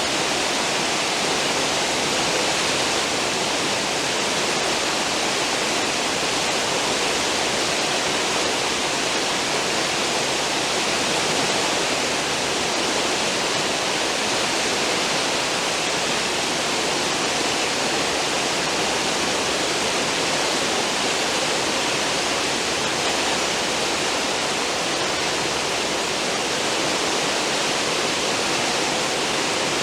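Cruise ship's wake churning behind the stern: a steady, unbroken rush of water.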